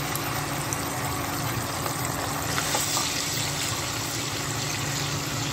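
Ginger-garlic paste frying in hot oil, a steady sizzle as it is stirred with a spatula, turning brighter and hissier about two and a half seconds in. A steady low hum runs underneath.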